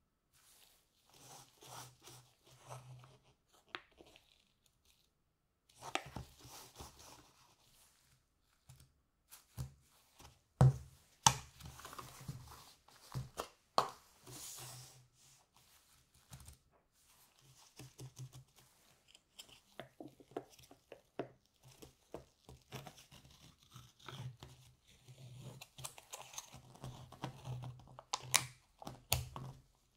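Handling of a plastic yogurt cup and spoon on a table: scattered clicks, rustles and a few sharp knocks about a third of the way in. Near the end comes the crinkling tear of the cup's foil lid being peeled off.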